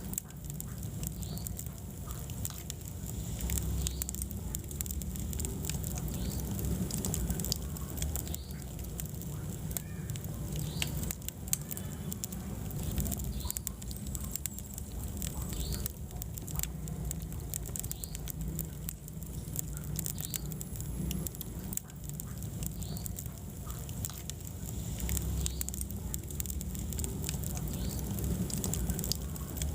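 Wood fire in a fireplace crackling steadily, with many small pops and snaps over a low rumble of the flames.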